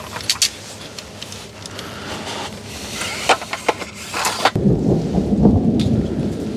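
Thunder rumbling: a low, loud roll that starts suddenly about two-thirds of the way in and keeps going. Before it there is a quieter steady hiss with a few sharp clicks.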